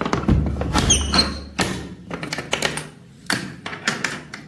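Music with a quick, irregular run of sharp taps and knocks.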